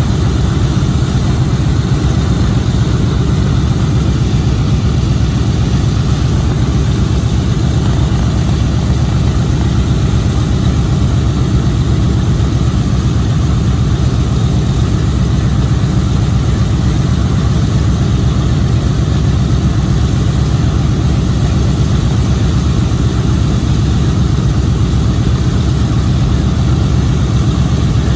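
Boeing B-17G Flying Fortress's Wright R-1820 Cyclone nine-cylinder radial engines idling on the ground with propellers turning, a steady low rumble that holds even throughout.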